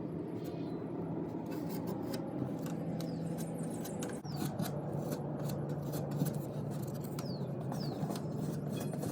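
Short scrapes and clicks of a putty knife working epoxy into holes in a fiberglass toolbox, over a steady low hum.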